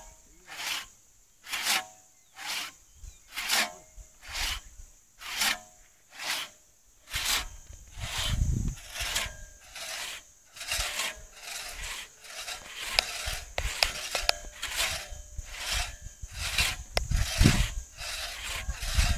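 Two-man crosscut saw rasping back and forth through a large log. The strokes come about once a second at first, then faster, about two a second, from about seven seconds in. There are two short bursts of low rumble.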